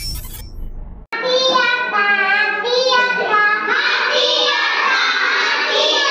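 Schoolchildren singing a Hindi poem together as a sing-song chant. It cuts in about a second in, after the tail of a short intro jingle, and gets fuller as more voices join.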